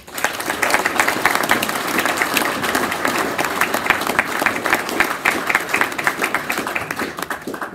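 Luncheon audience applauding: dense hand clapping that starts abruptly and eases off near the end.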